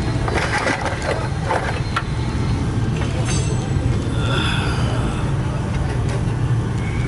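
A steady low mechanical hum with a few light clicks of tools on metal in the first couple of seconds.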